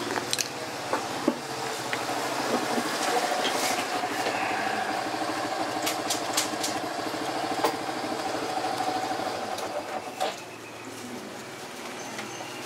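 An engine running steadily in the background, fading out about ten seconds in. Over it come scattered small clicks and rustles as a jack socket is handled and wiped with tissue.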